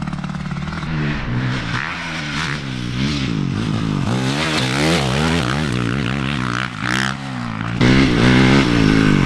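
Motocross dirt bike engine being ridden hard over rough ground, its revs rising and falling again and again, about once a second, as the throttle is worked. It gets a little louder near the end.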